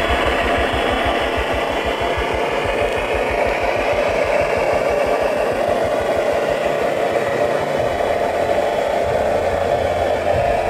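RC fire truck's high-pressure water pump running at half power while its roof monitor throws a continuous jet of water, a steady spraying noise over a fast low pulsing that quickens over the first several seconds.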